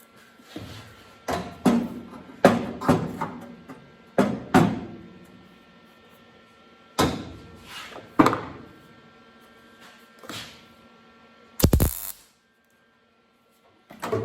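A string of hard knocks on steel sheet metal, about ten, each ringing briefly. A short sharp crackling burst comes near the end, then the sound cuts off suddenly.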